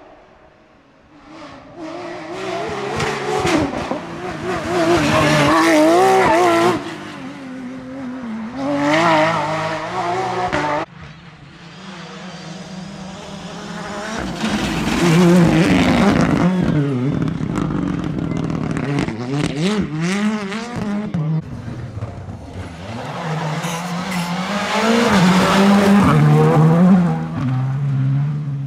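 Rally cars passing one after another at full throttle, about four in turn, their engines revving up and dropping back through fast gear changes.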